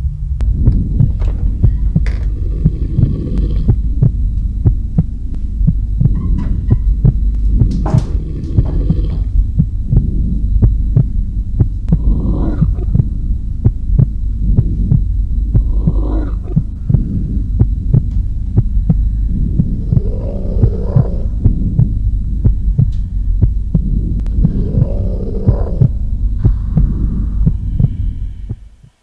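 Horror-film sound design: a loud low droning rumble under a dense, irregular throbbing pulse, with a few louder swells rising out of it. It cuts off abruptly at the end.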